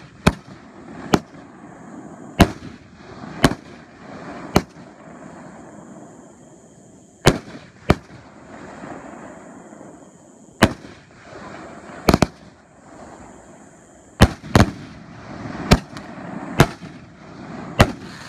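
Consumer aerial fireworks going off: about fifteen sharp bangs at uneven intervals, some in quick pairs, with crackling from the bursts between them.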